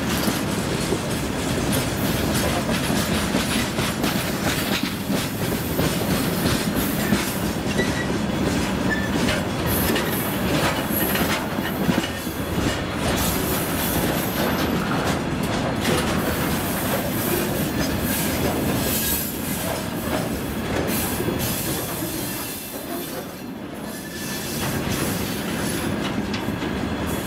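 Freight train wagons (boxcars, tank cars and hoppers) rolling past: a continuous rumble of steel wheels on rail, with repeated knocks as wheels cross the rail joints. The sound dips briefly a little over three-quarters of the way through.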